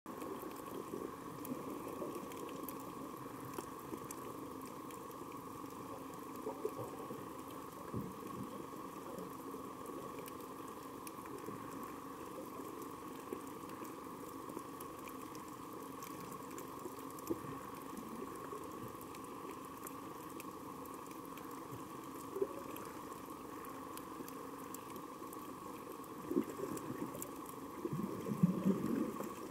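Underwater ambience on a coral reef: a steady watery hiss with scattered faint clicks and crackles, and louder bubbling near the end.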